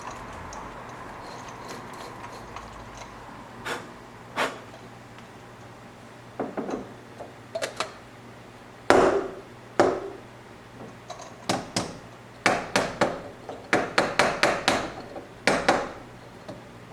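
Hard objects being knocked, tapped and set down on a counter, in scattered clacks that grow into a quick run of clatters near the end.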